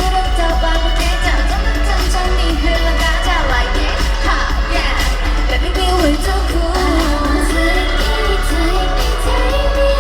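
Live pop song sung by women's voices over a backing track with a heavy bass line, heard through a concert sound system.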